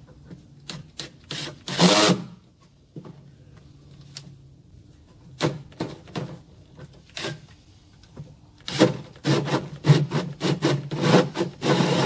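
Cordless drill turning a 2-inch hole saw that cuts through the wall of a plastic sump basin. It runs in short trigger bursts at first, then cuts almost without pause over the last few seconds.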